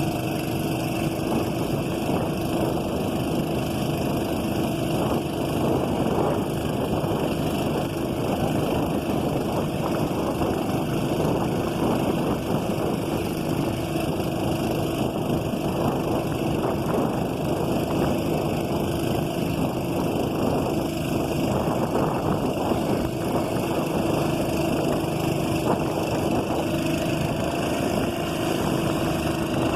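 A boat engine running steadily at a constant speed, an even drone with a fixed hum that does not rise or fall.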